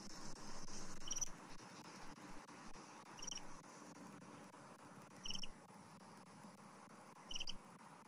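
Short, high double chirps repeating four times, about two seconds apart, from a small chirping animal. A steady high hiss runs under the first second.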